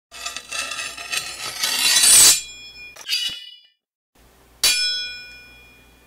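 Edited outro sound effects: a rising swell that cuts off sharply about two seconds in, a short metallic hit about a second later, then a loud metallic clang near five seconds in whose ringing dies away slowly.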